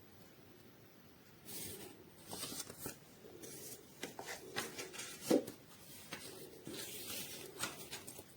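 Rustling and handling noises with scattered clicks, and a louder thump about five seconds in.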